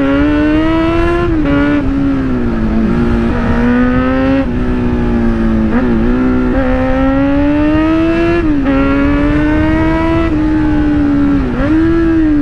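Kawasaki Z900's inline-four engine, heard from the saddle while riding, running through a loud aftermarket exhaust. The engine note climbs under throttle and drops back sharply about four times.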